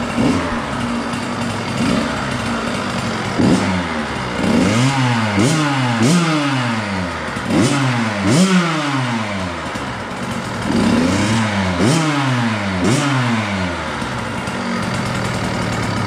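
KTM 65 SX two-stroke single-cylinder engine running through an FMF Powercore 2 pipe without a spark arrestor. It idles and is blipped about ten times in quick bunches, each rev rising sharply and falling back, then settles to a steady idle near the end.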